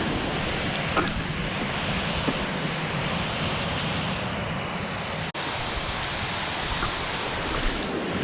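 Waterfall running fast: a steady rush of falling water. The sound cuts out for an instant about five seconds in.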